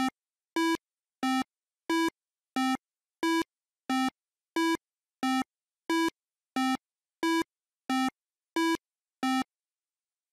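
Retro 8-bit style synthesized blips: the same short low beep repeated evenly about every two-thirds of a second, marking a cartoon turtle's slow walking steps, and stopping about a second before the end.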